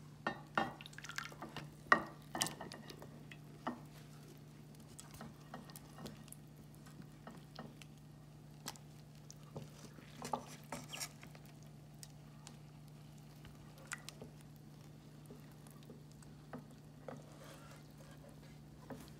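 Scattered small clicks and wet squishing from chicken curry being stirred and lifted with a silicone spatula in a metal pot, over a steady low hum.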